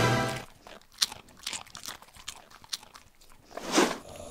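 Crunching of Doritos tortilla chips being bitten and chewed: several separate sharp crunches spaced out, with a louder one near the end.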